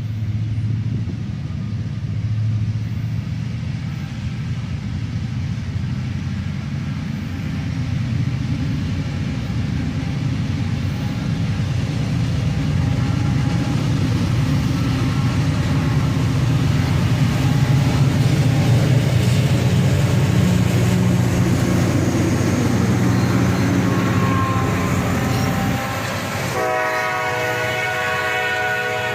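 Freight train passing with a steady low rumble of diesel locomotives and rolling cars. Near the end the rumble drops away and a diesel locomotive's air horn sounds a sustained chord.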